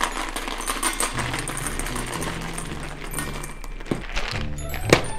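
Dry dog kibble poured from a plastic container into a stainless steel bowl, a dense rattle over the first few seconds, then a couple of sharp knocks near the end, over background music.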